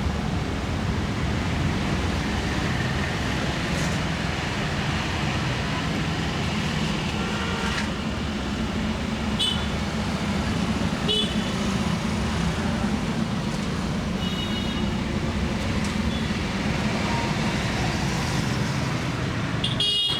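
Steady street traffic rumble with several short, high horn beeps scattered through it, the brightest near the end.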